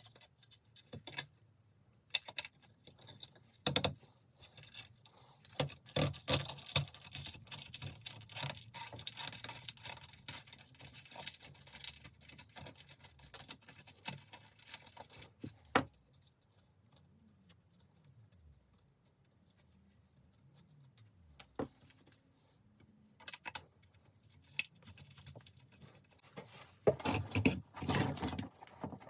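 Metallic clicks and jangling from a steel-spoked bicycle wheel being taken apart: the spoke key working the spoke nipples and loose spokes clinking against each other. The clicks come thick for several seconds, thin out in the middle and end in a loud jangle.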